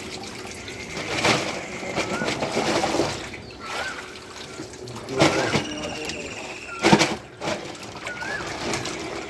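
Water splashing and sloshing in a metal fish tank as catla fish are grabbed by hand and dropped into a sack, with several louder splashes, the loudest about seven seconds in. A bird gives short rising chirps about every second and a half.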